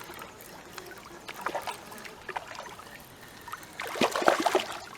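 Water splashing and trickling as a hooked silver perch is drawn in at the surface, with a louder burst of splashing about four seconds in.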